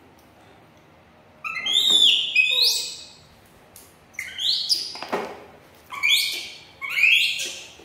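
Baby macaques giving a string of loud, high-pitched squealing calls, about one a second, starting about a second and a half in, as they reach for a peeled quail egg, food-begging calls.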